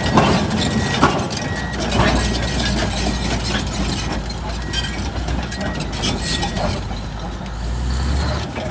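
Komatsu D155AX-6 crawler dozer's six-cylinder diesel running as the machine travels, with its steel tracks clanking over gravel. The engine's low drone grows heavier from about two seconds in and eases near the end.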